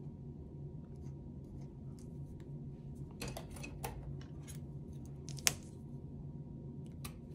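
Small craft scissors snipping washi tape, with light rustling as the tape and paper are handled. There are a few scattered snips and clicks, busiest around three to four seconds in, and the sharpest and loudest comes about five and a half seconds in. A low, steady hum runs underneath.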